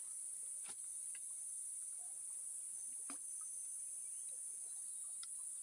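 Steady, high-pitched chorus of crickets, with three faint clicks along the way.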